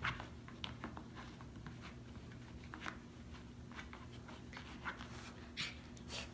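Small dog rolling and wriggling on its back on carpet: scattered short scuffs and rustles of fur and paws, with a slightly louder one at the start and a few longer ones near the end, over a steady low hum.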